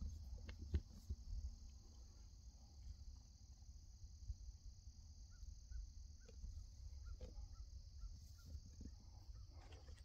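Faint, steady high-pitched drone of an insect chorus, with a low rumble on the microphone underneath. In the second half come a few faint short chirps, spaced about half a second apart.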